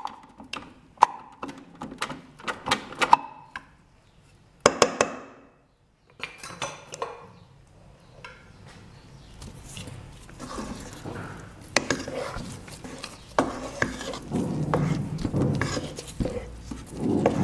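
Wooden spoon stirring soft bread dough in a metal bowl as olive oil is worked in: quick knocks of the spoon against the bowl in the first few seconds, then softer scraping and squelching with a few more knocks.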